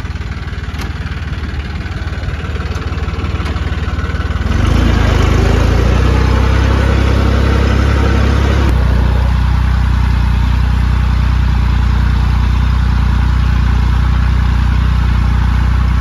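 Sonalika tractor's diesel engine running, heard from the driver's seat. About four and a half seconds in the revs rise and it runs louder and steady.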